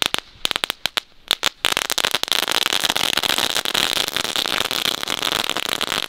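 Knetterlint, a Dutch category 1 crackling-ribbon firework, going off: separate sharp cracks at first, then about a second and a half in it breaks into a dense, continuous rapid crackle.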